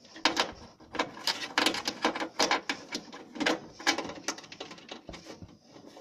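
Plastic-insulated wires and a wire connector being handled and pushed about by hand at a riding mower's starter solenoid: a string of irregular small clicks and rustles.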